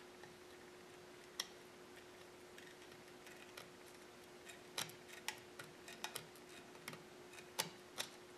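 Faint light clicks of a steel drill bit and a cast-iron piston ring tapping against the piston of a 15 hp Pattin Brothers oilfield engine, as the bit is worked around under the ring to hold it out of its groove. One click comes about a second in, then from about halfway they come several a second, over a steady faint hum.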